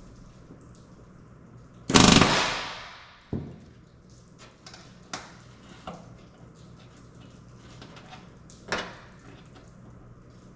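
Pneumatic rivet gun driving an aluminium rivet in one loud, short burst about two seconds in, followed by a few sharp clicks and taps of tools and rivets being handled.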